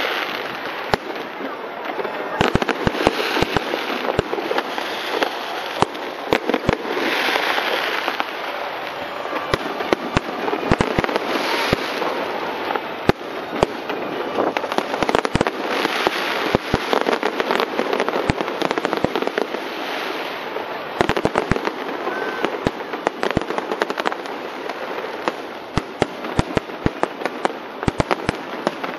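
Aerial fireworks display going off: a continuous, dense run of sharp bangs and crackles over a steady rushing wash of sound.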